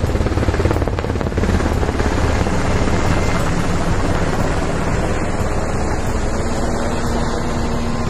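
A firefighting helicopter's rotor chopping steadily overhead.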